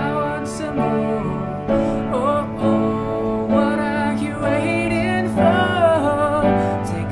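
Slow, gentle music: a melody line that slides and bends in pitch over sustained chords.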